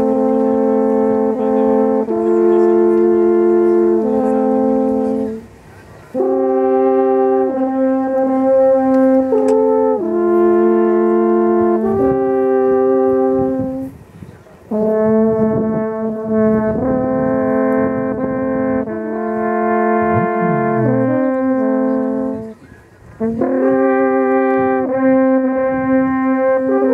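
Two wooden alphorns played as a duet: long held notes in two parts, moving together from note to note in slow phrases. The playing breaks off briefly three times, about five, fourteen and twenty-two seconds in, and then resumes.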